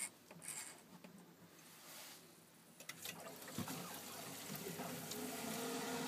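Vaillant boiler starting up after its control knob is turned: a few clicks from the knob, then from about three seconds in a rising steady rush of flowing water with a low hum. A steady tone joins near the end as the boiler runs, working normally after repair.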